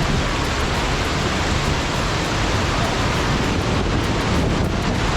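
Waterfall's falling water making a loud, steady rushing noise.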